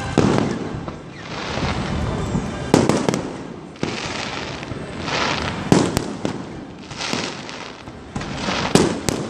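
Fireworks display: aerial shells bursting in a string of sharp bangs, about six over the stretch, one every one to three seconds, with a continuous noisy wash between them.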